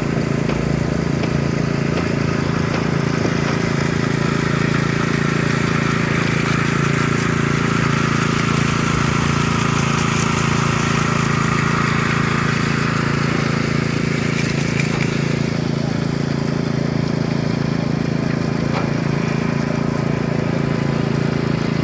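Concrete power trowel's small engine running steadily at constant speed while the machine smooths poured concrete, with a rougher scraping layer in the middle stretch.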